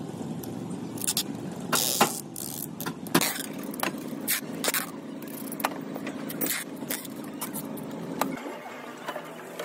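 A steady low mechanical hum with many sharp clicks and knocks scattered through it; the hum stops suddenly near the end.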